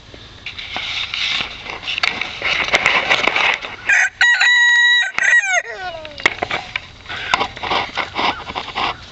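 A rooster crows once about four seconds in, a held call that falls away in pitch at the end. Chickens cluck and scratch before and after it.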